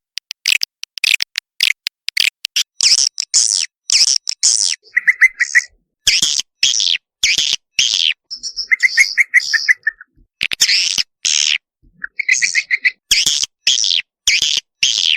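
Recorded swiftlet calls from a swiftlet-farming call lure, the kind played to draw swiftlets into a nesting house. Quick high chirps follow one after another, broken several times by brief fast, even rattling trills.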